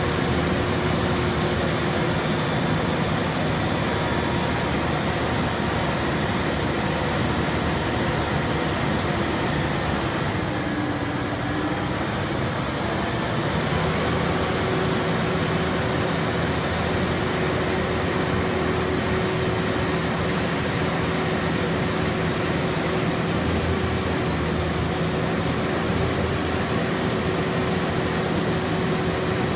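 Caterpillar C15 diesel engine of a boom truck running steadily while it drives the crane's hydraulics, the boom swinging and extending. The steady hum dips and shifts briefly about eleven seconds in, then settles back.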